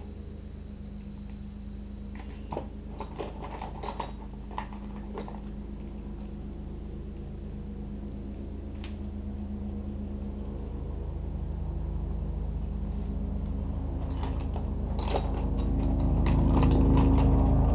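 Metal parts and tools clinking as they are handled at a lathe, in a quick cluster a few seconds in and again near the end, over a steady low machine hum that grows louder toward the end.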